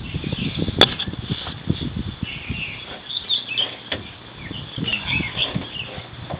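Small birds chirping on and off, over scattered clicks and knocks from handling. A sharp click about a second in is the loudest sound.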